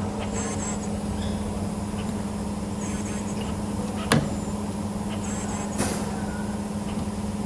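CNC spring forming machine running as it forms small torsion springs from 1.8 mm wire: a steady motor hum with short high chirps about every two and a half seconds, and sharp clacks about four seconds in and again near six seconds.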